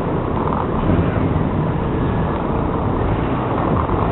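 Steady car cabin noise from a 1999 Subaru Forester on a snowy road: the engine runs and the tyres rumble, with a low drone throughout.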